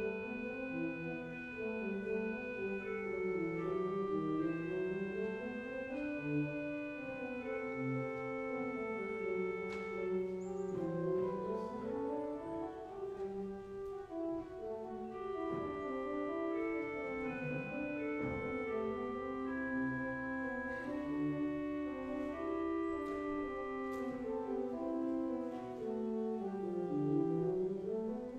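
Church organ playing slow music in sustained chords over a moving bass line.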